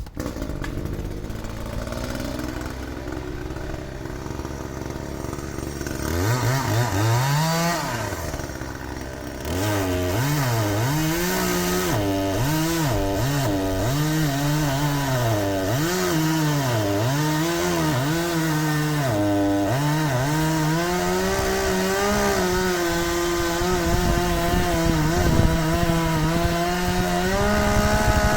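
Two-stroke chainsaw idling, then revved up and down again and again, then held at steady high revs for the last several seconds.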